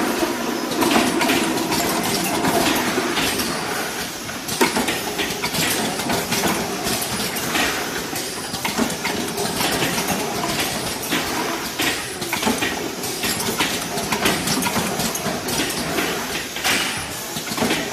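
Automatic four-head tracking piston filling machine running: continuous mechanical noise with many irregular clicks and clatters.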